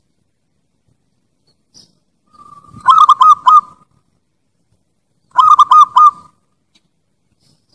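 Bangkok-type zebra dove (perkutut) cooing: two song phrases about two and a half seconds apart. Each phrase is a quick run of about four loud, rolling coo notes, the first with a soft lead-in.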